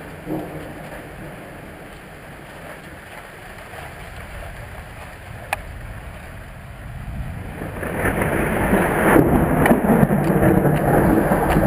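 Thunderstorm: rain and a low rumble dying down to a quieter hiss, with one sharp click about halfway. From about eight seconds in, thunder builds into a long, loud rolling rumble.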